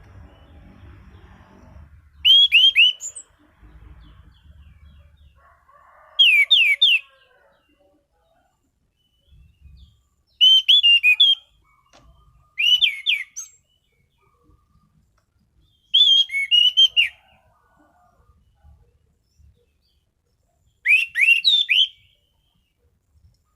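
Anis cendana (orange-banded thrush) singing: six short, loud phrases of quick, sharp, down-slurred whistled notes, each about a second long, spaced a few seconds apart with pauses between.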